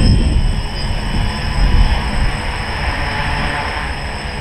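A 3D-printed tricopter's three electric motors and propellers buzzing steadily in flight, with a high whine and irregular low buffeting. The craft is flying with its rear end vibrating badly, which the pilot puts down to a fault in the tail.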